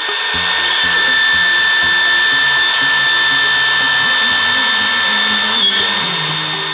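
Makita RT0700C trim router, used as the spindle of a homemade CNC milling machine, running at speed with a steady high whine. Music plays underneath.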